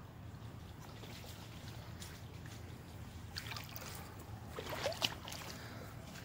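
Faint, steady rush of a river flowing, with a couple of brief soft sounds about three and a half and five seconds in.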